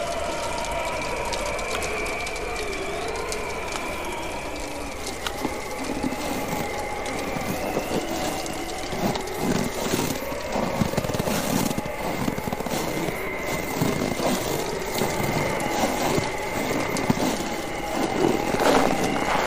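Bonfire crackling and popping, the snaps growing busier and louder after the first few seconds, over a steady, wavering, whistling howl of wind.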